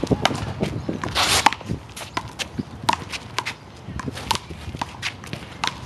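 A handball rally: irregular sharp smacks of the rubber ball off hands, wall and court, mixed with sneaker footsteps. A short scraping rush about a second in is the loudest sound.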